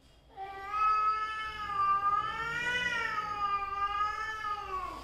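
A domestic cat's long, drawn-out yowl (caterwaul), starting about half a second in and lasting over four seconds, its pitch wavering slowly up and down. It is an aggressive warning call in a face-off with another cat.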